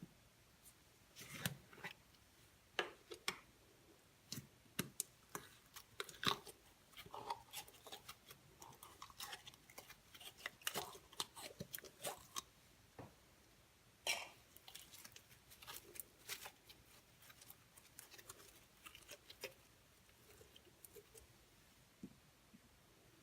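Slime being squeezed and pressed by hand, giving irregular short clicks and crackles, some in quick clusters.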